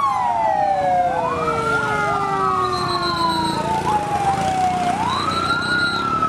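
Several fire-service vehicle sirens wailing at once, out of step: each rises quickly in pitch and then falls slowly over a few seconds, with a new rise about a second in and another near the end.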